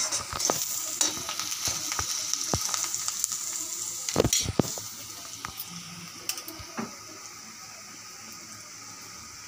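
Chopped onion sizzling in hot oil in a pan as it browns, stirred, with sharp knocks against the pan here and there and a louder cluster of them about four seconds in. After that the sizzle settles quieter.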